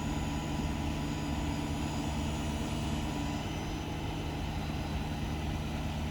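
A heavy engine running steadily at idle, with an even low hum that holds the same pitch throughout.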